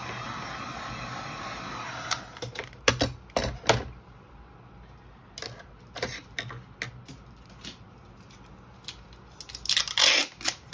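Clear cellophane wrap crinkling as it is handled, in scattered crackly bursts and clicks, with a cluster a couple of seconds in and the loudest burst near the end.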